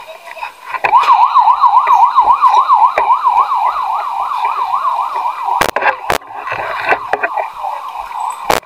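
Emergency vehicle siren sounding a fast yelp that rises and falls about four times a second. It starts loud about a second in and fades after about five seconds, with a few sharp clicks near the end.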